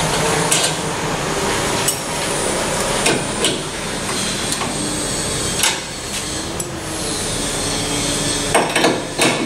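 Scattered metallic clicks and clinks of steel spanners and a nylock nut being handled and fitted onto a bolt, with a quick cluster of clicks near the end.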